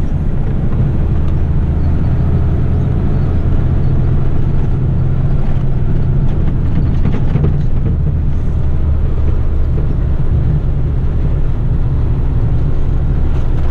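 Heavy rigid truck's diesel engine pulling hard under a heavy load, a steady low drone.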